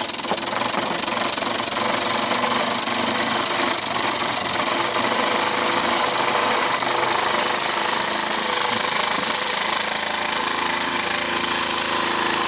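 Mamod Minor 2 toy steam engine, fitted with Teflon crankshaft bushes and a heavy bronze flywheel, running flat out on a speed test: a steady fast mechanical chatter over a constant hiss of steam.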